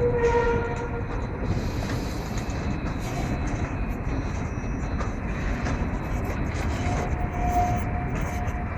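Low-floor tram rolling through a curve and switch: a steady rumble of wheels on rail, with a short wheel squeal right at the start and a faint thin squeal again from about seven seconds in.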